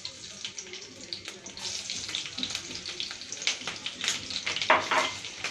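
Slit green chillies sizzling in hot oil in a frying pan, a steady hiss with sharp crackles and pops throughout, the loudest pop a little before the end.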